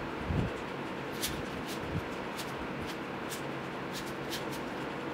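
4x4 Rubik's cube being turned by hand: the plastic layers give quick, irregular clicks, about eight in a few seconds, after a soft low bump near the start.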